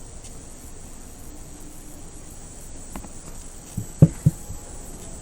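A steady high-pitched background tone with a faint low haze, broken by a small click about three seconds in and two louder dull knocks just after four seconds.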